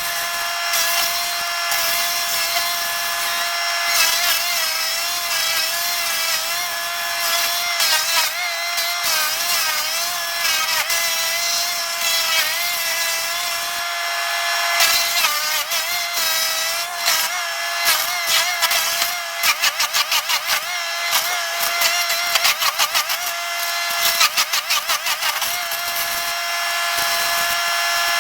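Chainsaw engine running at high revs and cutting, its pitch sagging under load and recovering, with quick bursts of revving about two-thirds of the way through.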